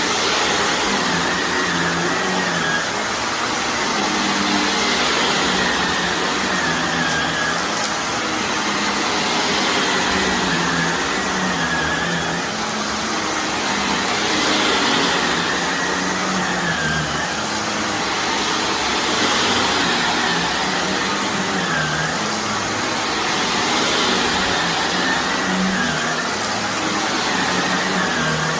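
Shark vacuum cleaner running over a carpet laden with dry soil and debris, a steady suction rush with a whine whose pitch and loudness swell and dip every two seconds or so.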